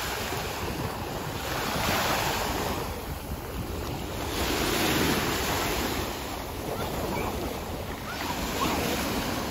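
Small sea waves breaking and washing over the shallows at the shoreline, swelling and easing about three times, with wind buffeting the microphone.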